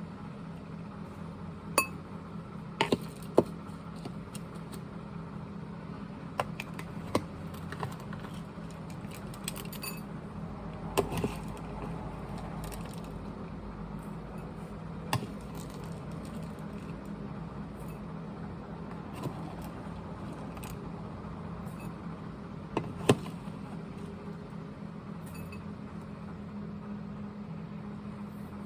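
Scattered sharp clicks and knocks of hard objects being handled, the loudest about three seconds in and again near the end, over a steady low hum.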